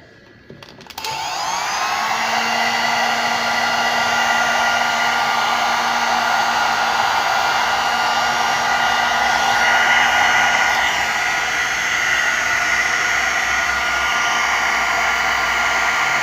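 Hair dryer switched on: its motor spins up over about a second, then runs steadily with a steady whine over the rush of air, the dryer working after its repair.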